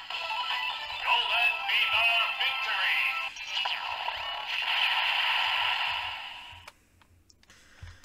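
Kamen Rider Geats DX Fever Slot Raise Buckle in the DX Desire Driver toy belt playing its electronic music jingle with a synthesized voice call through a small, tinny speaker, the toy's sound triggered by pulling the buckle's crank. It stops about seven seconds in.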